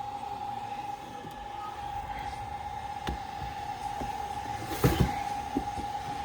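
Steady, high-pitched electrical whine from repair-bench equipment, with a few light clicks and a sharper double knock about five seconds in.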